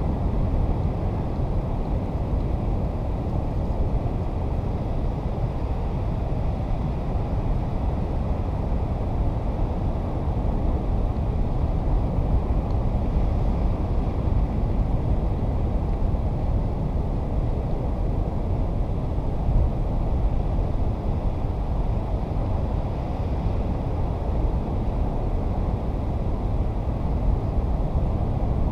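Wind blowing across the microphone: a steady low noise with no separate events.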